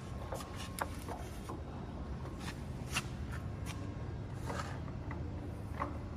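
Large gap-bed engine lathe running, a steady low hum with scattered light clicks and knocks.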